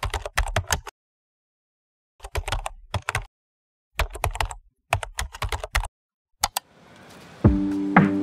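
Computer keyboard typing: quick key clicks in bursts of about a second, with dead silence between, and two lone clicks near the end. Then a hiss swells and music begins about seven and a half seconds in.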